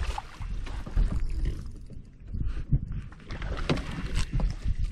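Water lapping against the hull of a bass boat, with scattered knocks on the deck.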